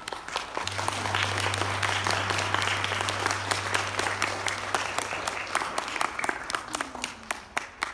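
Audience applauding, swelling in the first couple of seconds and thinning to scattered separate claps near the end. A low steady hum runs underneath and stops after about six seconds.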